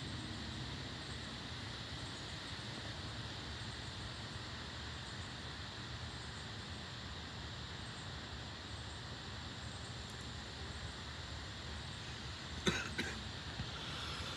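Steady outdoor background noise, an even hiss with no distinct events. A short cough-like burst comes near the end.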